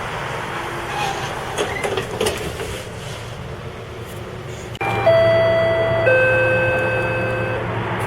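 GO Transit train door-closing chime: two sustained tones, a higher note then a lower one, sounding about five seconds in over steady background noise, the signal that the doors are about to close.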